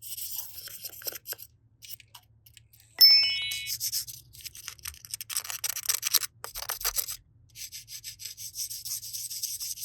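Crackly, high-pitched rubbing and rustling, like hands working a crunchy material, broken by short pauses. About three seconds in comes a sharp bell-like ding that rings briefly and is the loudest sound.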